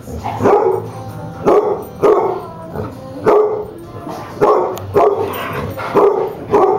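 Dogs barking over and over while playing rough, a short bark every half second to second.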